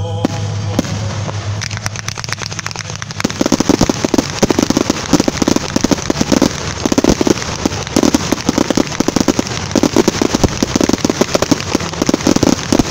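Aerial fireworks display: crackling at first, then from about three seconds in a rapid, continuous barrage of shell bursts going off several times a second.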